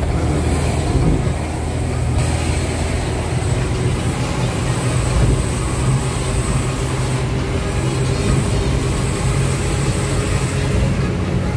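Truck engine running at a steady speed while driving, heard from inside the cab as an even low drone with road noise.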